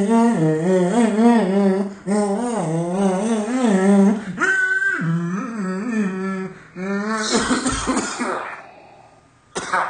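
A single voice humming a wavering tune in several phrases, then a short noisy, throat-like sound about seven and a half seconds in, and a brief burst near the end.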